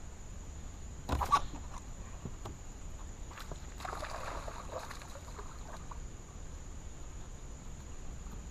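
A sharp knock about a second in, then a second or so of splashing around four seconds in as a small hooked bass is brought to the boat.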